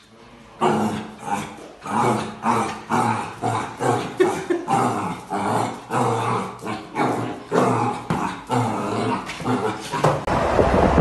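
Black puppy barking and growling over and over, about two short barks a second, at its own reflection in a mirror.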